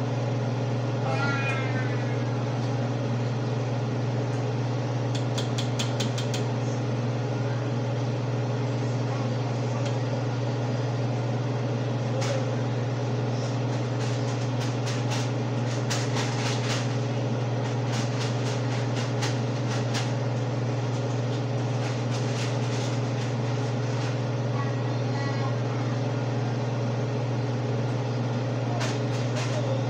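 Steady low mechanical hum, with scattered light clicks and taps from metal tongs working in a boiling pot, coming thickly through the second half.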